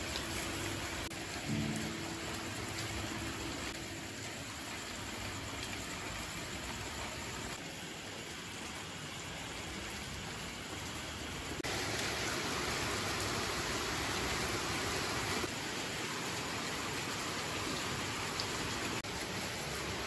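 Steady hiss of rain, louder from about twelve seconds in.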